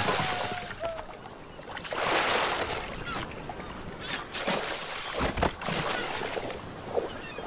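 Cartoon sound effects of splashing and rushing water, broken by a few sharp strikes, with short vocal squeals and grunts from the characters.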